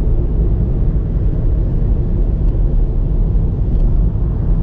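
Steady low rumble of a moving car: road and engine noise.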